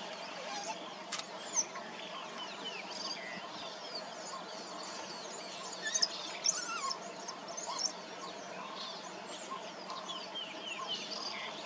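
Many short, high-pitched chirps and twitters throughout, over a faint steady low hum.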